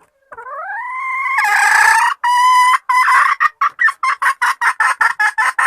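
Domestic hen calling: a long note that rises in pitch, a second held note, then a fast run of short clucks that speeds up.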